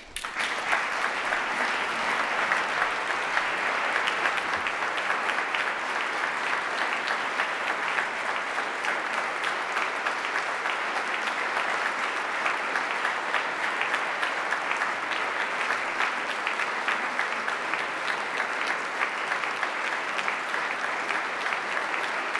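Audience applauding steadily: dense, sustained clapping that starts suddenly and keeps an even level throughout.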